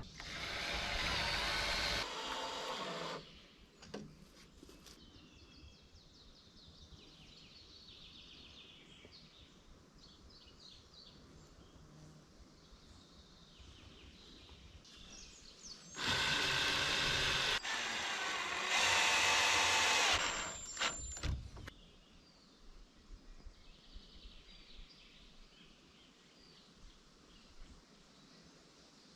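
Electric drill running in spells: one of about three seconds at the start, then two close together from about sixteen seconds in. Faint birdsong between them.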